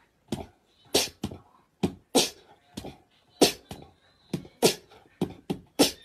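Cat hissing in short, sharp spits, about two a second and unevenly spaced: a defensive warning.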